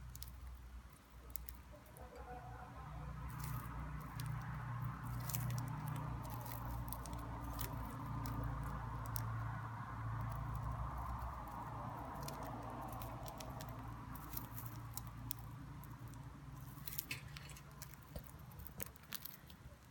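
Budgerigar pecking and nibbling at its food: a scatter of small sharp clicks and taps at an uneven pace, over a low steady hum.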